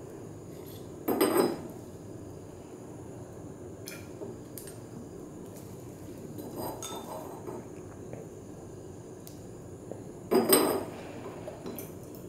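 Glass knocking and clinking against glass: two louder short knocks, about a second in and near the end, with a few lighter clicks between, as a dropper and glass stopper are worked at the neck of a glass reagent bottle.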